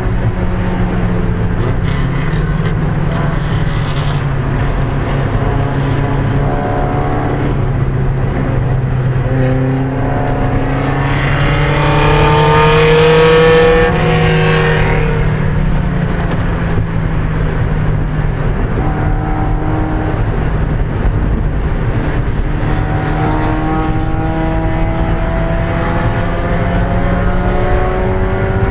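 1995 Mazda Miata's 1.8-litre four-cylinder engine running under race load, its revs climbing slowly and falling back several times. A louder rush of hissing noise lasts a few seconds around the middle.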